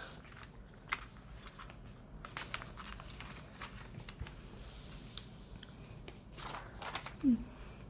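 Diamond painting canvas and its packaging being handled and unrolled: scattered soft rustles, crinkles and light clicks.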